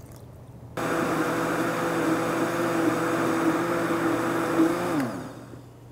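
Electric countertop blender switched on about a second in and running steadily as it mixes eggs, oil, lard, sugar and milk into a liquid batter, then switched off near the end, its motor pitch falling as it winds down.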